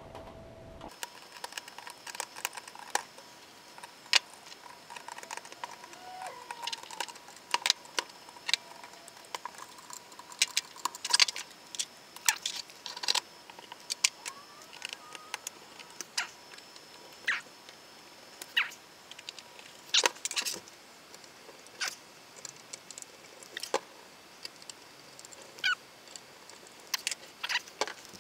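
Irregular small clicks, taps and scrapes of hands working on a D-Link KVM switch as it is put back together and set back in place, over a faint steady high whine.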